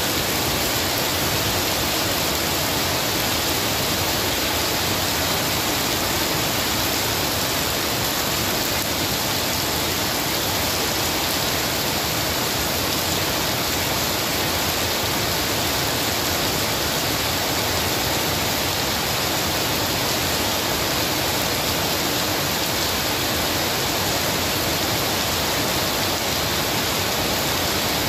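Heavy rain falling steadily onto wet, puddled paving: a dense, even hiss of drops splashing on the ground.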